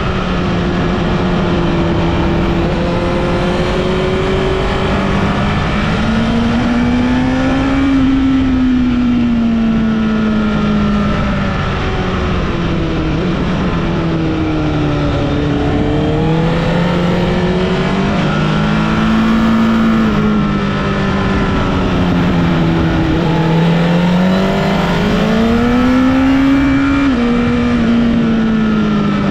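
Honda CBR1000RR (SC77) inline-four engine heard while riding mountain curves, its pitch rising and falling as the throttle opens and closes, over steady wind and road noise. Its pitch drops sharply once near the end, as at a gear change.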